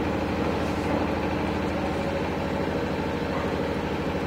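An engine running steadily, giving a low, even hum.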